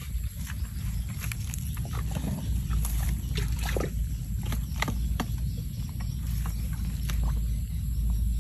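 Steady low rumble, with scattered sharp clicks and wet knocks as a bamboo tube eel trap is handled and tipped to shake the eels out into a woven basket.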